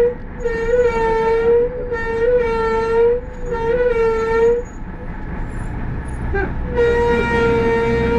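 Minibus brake pads squealing: a loud whistle with a slightly wavering pitch, four squeals close together, then a pause with engine rumble, then one longer squeal near the end.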